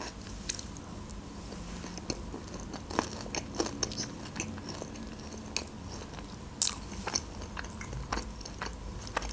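Close-miked chewing of a mouthful of Caesar salad, with crisp crunches scattered through, the loudest about three seconds in and again about two-thirds of the way through.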